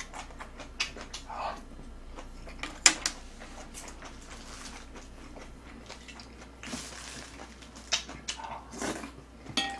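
Close-miked chewing and mouth smacking of someone eating a mouthful of geotjeori kimchi, with scattered light clicks of chopsticks and a spoon against bowls.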